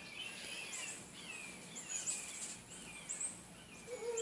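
Small birds chirping: many quick, high chirps that fall in pitch, repeated and overlapping throughout. A lower, wavering cry begins just before the end.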